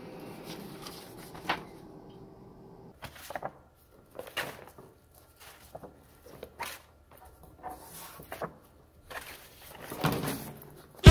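Handling noises: scattered knocks and rustles of paper sheets and a cloth bag being picked up and set down on a table, with a brief swish near the end as the bag is swung up. A laser printer's low hum runs at first and stops about two seconds in.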